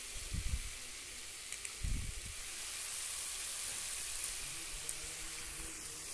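Onion-garlic-ginger masala with freshly added ground spices frying in hot oil in a kadai: a steady sizzle. Two dull low bumps come in the first two seconds.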